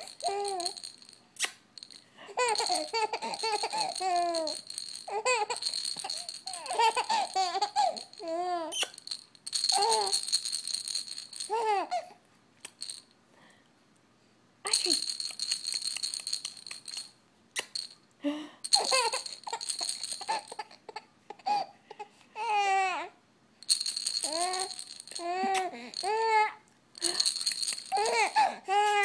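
A baby giggling and laughing in repeated bursts while a stuffed toy is shaken, rattling in stretches. There is a quiet gap of about two seconds near the middle.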